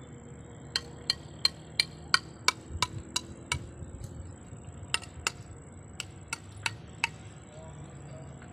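Small hammer tapping a fired clay roof tile: sharp ringing clinks, about three a second, a run of ten, a short pause near the middle, then six more.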